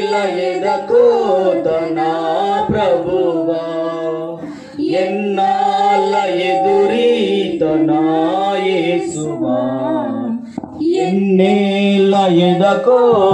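A devotional hymn in Telugu sung in long, held phrases, with two short breaks between phrases.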